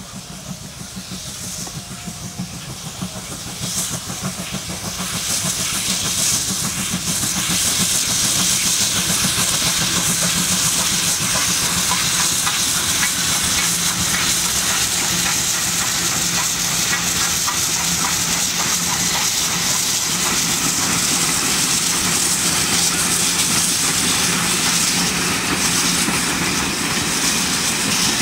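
Steam locomotive working past with a train of coaches, its exhaust and steam hissing over the rolling of the carriages. It grows louder over the first six seconds as it approaches, then stays loud.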